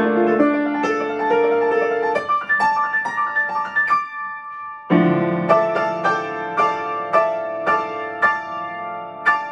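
Solo Boston grand piano playing a classical-style piece: flowing notes that thin out to a few high held notes about four seconds in, then a loud re-entry with full chords struck about twice a second.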